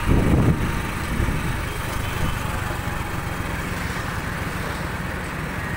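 Steady road traffic noise from motorcycles, auto-rickshaws and cars on a busy town road, a low even rumble.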